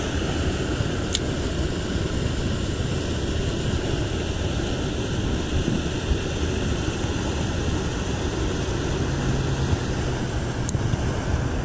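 Water pouring steadily over a concrete canal spillway, running high after a storm: a constant, even rush of falling and churning water.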